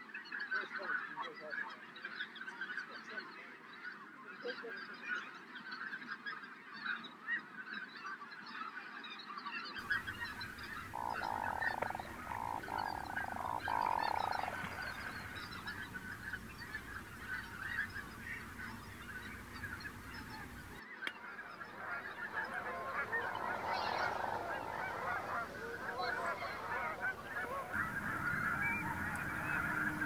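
Many waterfowl calling at once, a dense continuous chorus of overlapping calls. The background changes abruptly about ten seconds in and again about twenty-one seconds in, and one longer, steadier call stands out around the eleven-to-fourteen-second mark.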